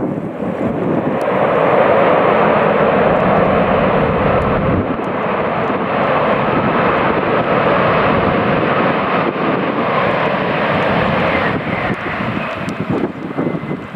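Airbus A340-600's four Rolls-Royce Trent 500 jet engines running at high power as the airliner rolls along a wet runway. The jet noise is loud and steady, builds over the first two seconds and eases off near the end.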